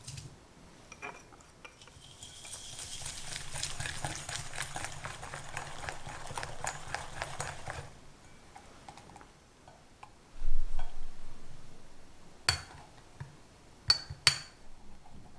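Silicone whisk beating egg yolks and sugar in a glass bowl, in quick, even strokes for several seconds. A dull low thump follows, then a few sharp taps of a metal mesh sieve as corn starch is sifted in near the end.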